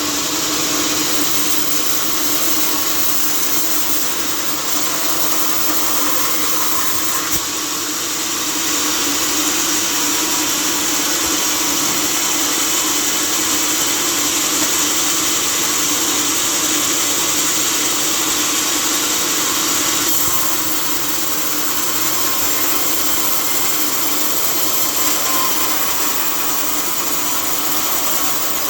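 Sawmill saw running with a steady hum and a strong hiss. It grows louder about eight seconds in and eases back about twelve seconds later.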